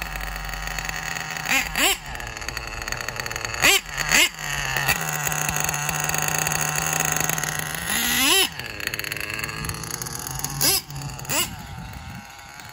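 RB Nova 28.8 nitro engine in a 1/8-scale Mugen MBX7 RC truggy running at a high-pitched whine, with about six sharp throttle blips that rise and fall in pitch.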